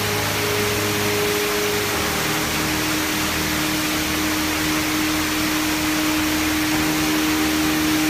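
A waterfall rushing over rock in a steady, even roar. Slow, held background music notes sound underneath, changing pitch every second or two.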